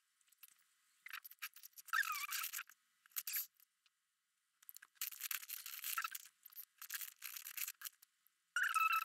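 Felt-tip markers colouring on paper: runs of quick, scratchy back-and-forth strokes with short pauses between, some of them squeaking.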